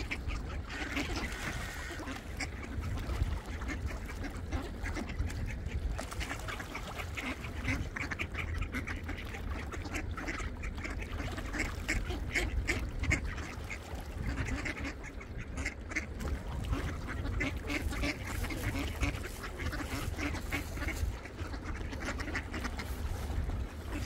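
A flock of ducks quacking busily and out of step while they are being fed, many short calls overlapping.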